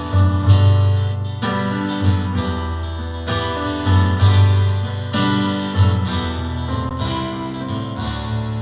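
Acoustic guitar strumming chords in a song's instrumental intro, with no singing yet.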